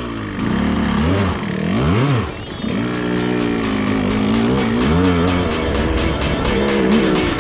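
Dirt bike engine running and being blipped up and down, with one quick rise and fall in revs about two seconds in.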